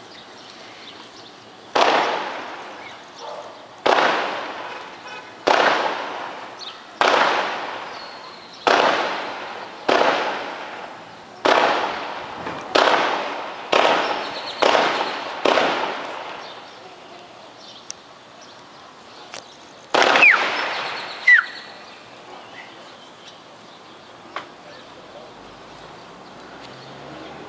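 Distant gunfire: about a dozen single shots, roughly one every second and a half, each followed by a long echo, then a pause and two more shots close together.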